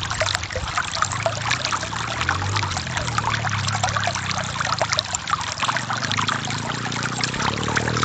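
Stream water flowing and splashing over rocks: a steady rush dense with small, quick splashes.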